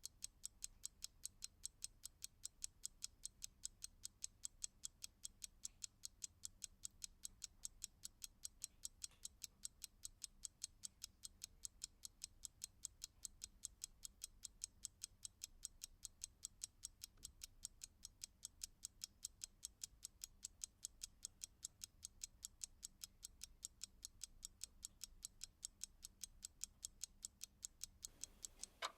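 Mechanical clock ticking quickly and evenly, about four light, high ticks a second.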